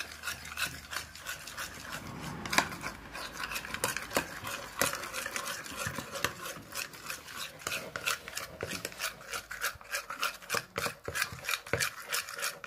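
White glue and liquid laundry detergent being stirred together into slime, the utensil scraping against the container in quick repeated strokes, about three to four a second.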